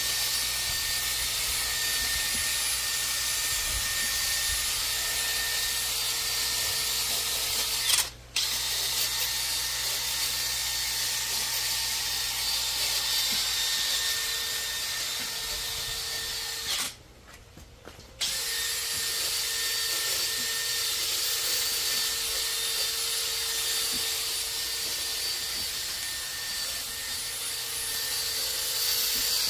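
Small handheld rotary power tool running steadily against a bare engine block, a hissing whir with a thin steady whine. It stops briefly about eight seconds in and again for a second or so near the middle.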